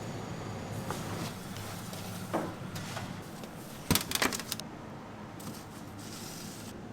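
A few sharp knocks and clatters, the loudest a quick cluster of them about four seconds in, over a steady low machine hum.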